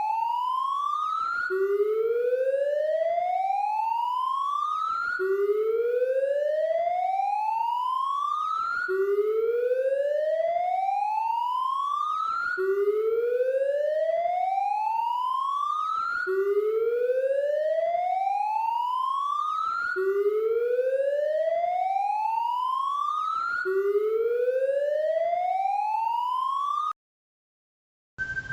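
Siren wailing in a repeating pattern: its pitch climbs slowly for about three and a half seconds, snaps back down and climbs again, about seven times over. It cuts off a second or so before the end, and a different siren begins right at the end.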